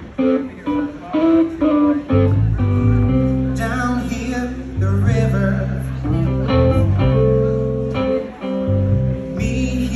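Live band playing a slow blues song: electric guitar over sustained bass guitar notes, with a man singing over it from a few seconds in.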